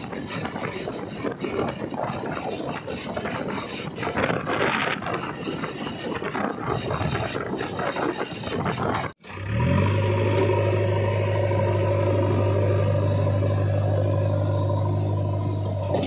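Rushing wind and road noise from a moving vehicle, broken by a sudden cut about nine seconds in. After the cut comes a steady engine hum with an unchanging pitch.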